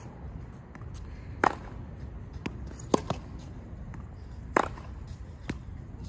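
Tennis balls struck with a racket in a groundstroke rally: three sharp pops about one and a half seconds apart, with softer ball bounces on the hard court between them.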